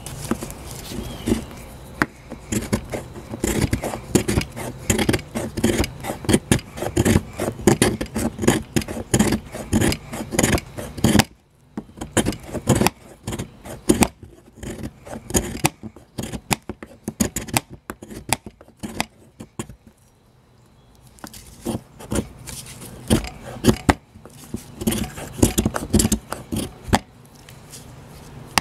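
Knife blade scraping a fatwood stick in quick, repeated short strokes to rasp off fine resinous Maya dust. The scraping stops about eleven seconds in, comes only now and then for several seconds, then picks up again.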